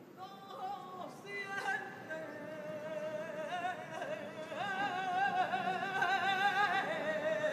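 A woman singing a saeta unaccompanied. Short broken phrases come first, then long held notes with a wide, wavering vibrato, growing louder toward the end.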